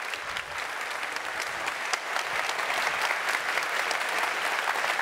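Audience applauding, a dense, even clapping that grows louder about two seconds in.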